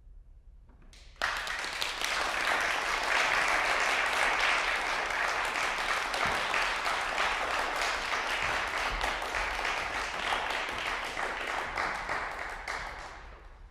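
Audience applause, breaking out suddenly about a second in and fading away near the end.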